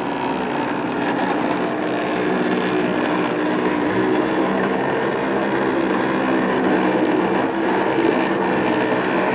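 Engine of a small motorised watercraft running steadily at an even speed.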